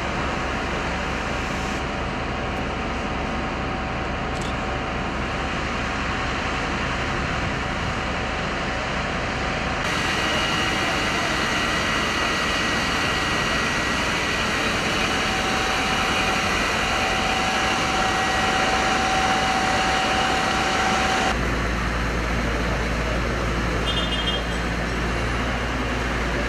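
City street noise with vehicle engines running, shifting abruptly at the edits; a strong steady low hum joins near the end.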